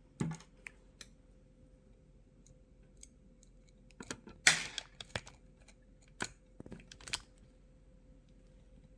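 Curtain track parts and screws being handled: scattered light clicks and knocks, busiest and loudest about four and a half seconds in, with a few more a couple of seconds later.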